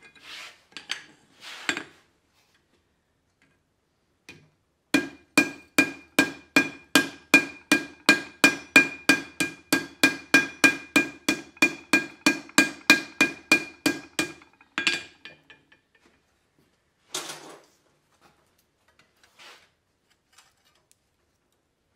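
Hand hammer striking red-hot steel held in tongs on an anvil: a steady run of about thirty blows, roughly three a second, each with a ringing ping from the anvil. The hammering stops suddenly near the middle, and a few scattered clanks of tools follow.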